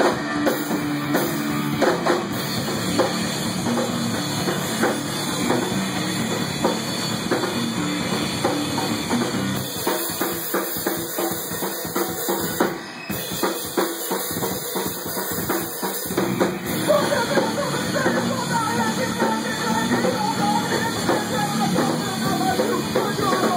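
Rock band playing a song, a drum kit keeping a steady beat with bass drum and cymbals under sustained instrument tones. About two-thirds of the way through, a wavering higher melody line comes in over the band.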